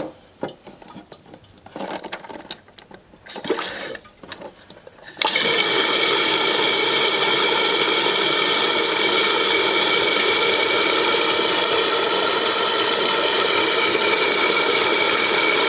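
Toilet fill valve opening about five seconds in and refilling the tank: a steady, loud rush and hiss of water with a faint whistling tone in it. Before that, a few soft clicks and knocks as the float-height adjustment knob is turned.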